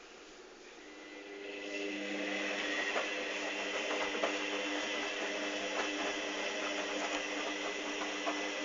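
Hoover Dynamic DYN 8144 D washing machine's motor turning the drum through one wash rotation with wet towels. It builds up over a second or so to a steady hum with splashing and clicks, then stops near the end.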